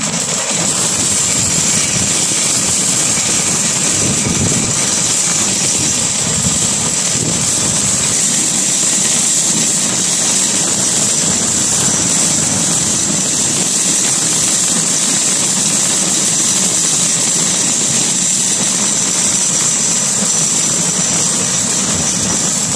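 A steady, loud rushing noise with a high hiss on top, unchanging throughout.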